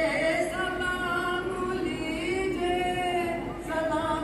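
A voice singing an Urdu devotional salaam to the Prophet Muhammad, holding long drawn-out notes that glide slowly between pitches.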